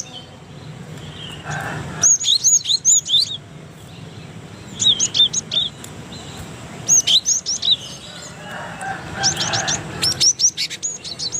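Cinereous tit (gelatik batu) singing: bursts of rapid, repeated sharp high notes, about four phrases with short pauses between them.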